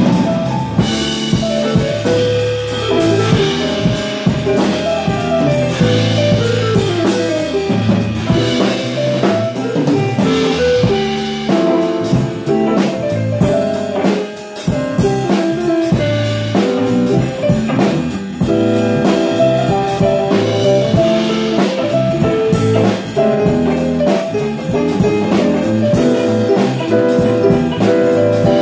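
Live instrumental band with no singing: hollow-body electric guitar, electric bass, keyboard and drum kit playing together, the drums keeping a steady beat under the guitar lines.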